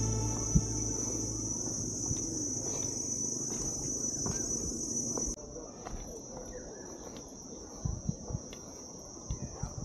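Steady high-pitched buzz of forest insects, dropping a little in level about halfway through. Soft footsteps on the stairway thud a few times near the end, and background music fades out in the first second or so.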